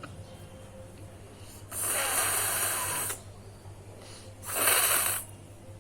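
A person blowing their nose hard twice: a long blow about two seconds in and a shorter, louder one near the end.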